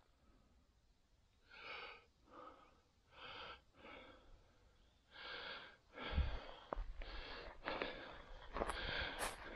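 A person breathing close to the microphone, a series of short hissy breaths. From about six seconds in, the breaths grow louder, with low thumps and a few sharp clicks as he walks.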